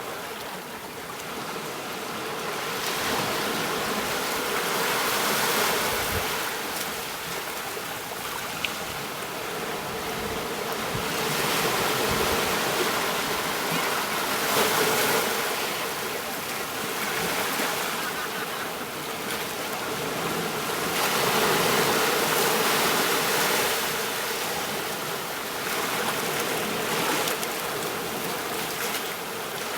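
Ocean waves washing onto a beach: a steady rush of surf that swells and falls away every several seconds as each wave breaks and draws back.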